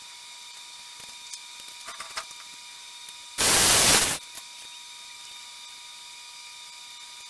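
Circular saw cutting across a wooden board in one short, loud burst of under a second that starts and stops abruptly, after a few light knocks as the board and saw are handled.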